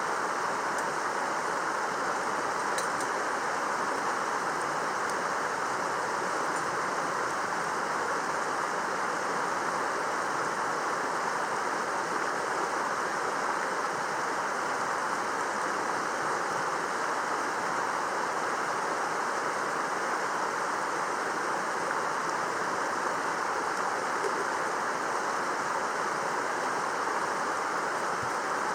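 Mountain stream running, a steady even rush of water.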